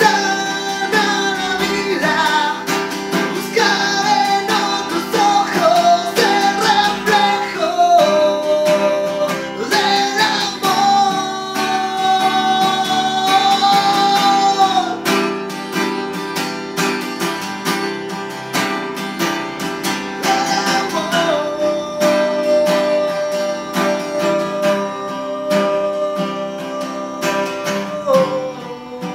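A man singing over his own strummed acoustic guitar, with long held notes; near the end the voice stops while the strumming goes on.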